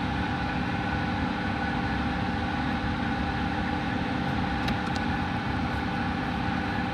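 A steady machine hum with several steady tones, from a motor or fan running throughout. A few faint ticks come about two-thirds of the way through.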